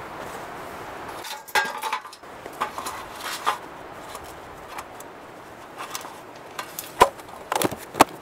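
Cloth stove bag packed into a thin metal Firebox fire pan tin and the lid closed: scattered light metallic clicks and clinks, with the sharpest clicks near the end as the lid is pressed shut.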